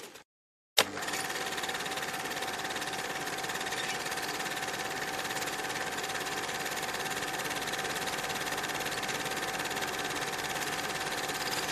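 Cine film projector running with a steady mechanical clatter and whirr. It cuts to silence for a moment right at the start and comes back with a sharp click.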